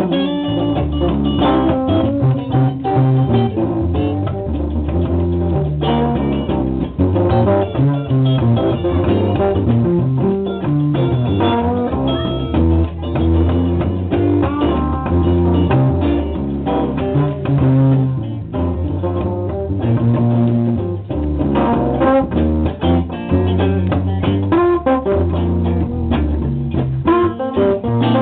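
Two electric guitars jamming together, with a busy run of quickly picked notes over lower held notes that change every second or two.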